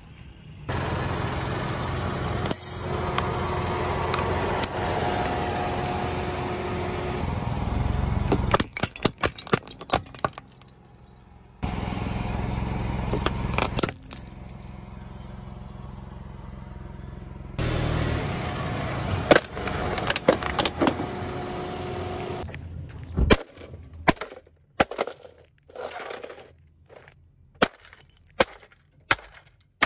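A car running close by as its tyre rolls over objects and crushes them, with a run of sharp cracks and snaps near the end of each pass. Near the end comes a string of separate sharp clicks and snaps.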